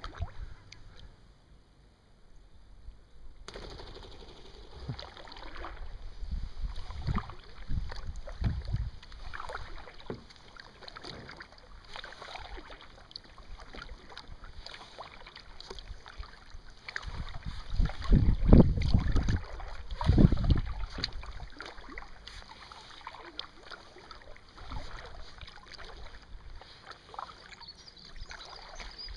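Kayak paddles dipping and splashing, with water lapping around a kayak hull. The splashing starts a few seconds in and comes in irregular strokes, with a few louder low rumbles about two-thirds of the way through.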